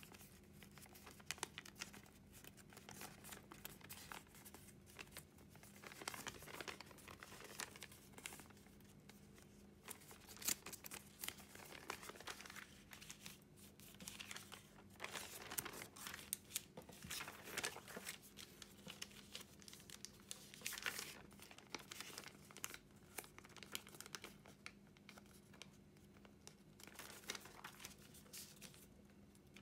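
Large sheet of origami paper crinkling and rustling as hands fold it and press creases flat on a wooden tabletop: faint, irregular crackles and swishes.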